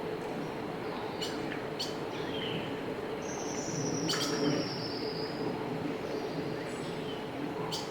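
Songbird chirping: a few short, sharp high chirps and one long, slightly falling high whistle, over a steady low background hum. This is the bird chirping sound effect that was added to the soundtrack.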